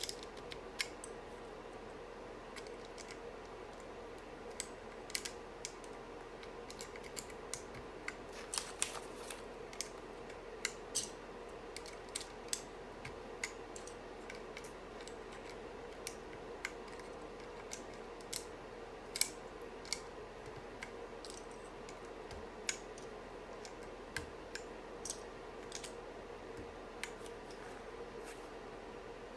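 Irregular sharp plastic clicks and taps from a 40% mechanical keyboard being handled and assembled, over a steady background hum.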